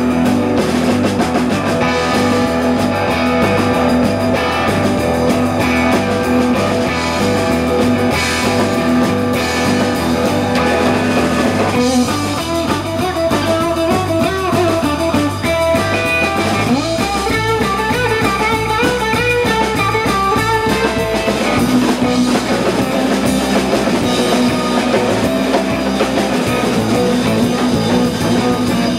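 Live rock band playing an instrumental number, electric guitar leading over drums and bass.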